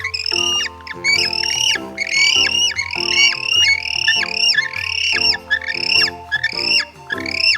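Penguin calling: a quick run of repeated high squawks, about two or three a second, over light background music.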